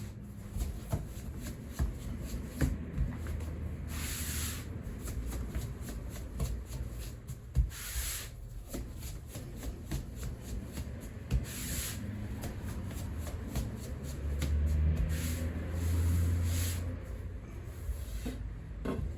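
Hands and tools working buckwheat soba dough: continuous rubbing and shuffling with small knocks, and a brief swish about every four seconds.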